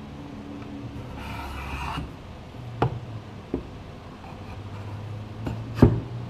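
Wooden lever arms of a homemade can crusher rubbing and knocking against the wooden frame as they are worked up and down by hand on their pivot. A scraping rub comes about a second in, then a few sharp wooden knocks, the loudest near the end, over a steady low hum.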